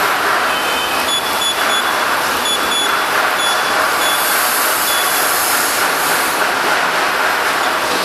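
Short high beeps from a handheld message-sign controller's keypad as its arrow button is pressed to scroll a menu, about eight beeps over the first five seconds, over a loud steady noise.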